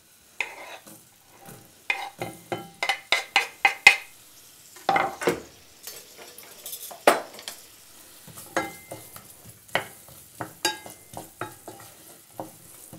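Chopped onion sizzling as it drops into hot sesame oil in a pot, with a quick run of taps and knocks from the wooden board and knife against the pot about two to four seconds in, then a wooden spoon stirring the onions near the end.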